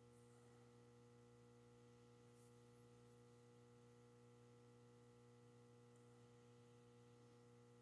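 Near silence: a faint, steady electrical hum as room tone.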